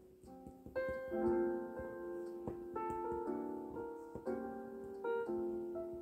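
Background piano music, chords and melody notes changing about once a second.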